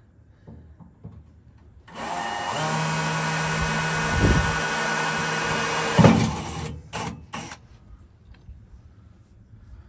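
Power drill running steadily for about five seconds, boring a pilot hole, with a sharp knock near the end, then two short blips of the trigger.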